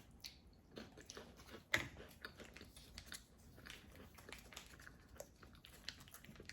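Faint close-up chewing and crunching of crackers, a run of small, irregular crisp clicks, one sharper crunch a little under two seconds in.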